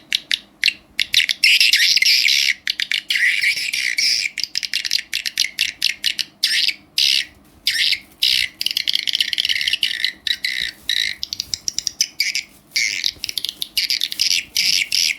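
Recorded swiftlet calls played through a digital stereo amplifier: dense, rapid chirping and twittering trills in fast clicking runs broken by short gaps, the kind of swiftlet sound used to lure birds into a swiftlet house.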